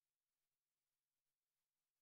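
Near silence: only a faint hiss.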